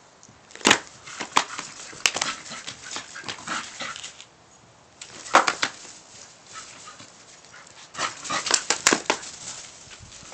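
An excited dog running and playing, making short, sharp, noisy sounds in clusters: one about half a second in, a run between two and four seconds, another at about five seconds and a dense burst around eight to nine seconds.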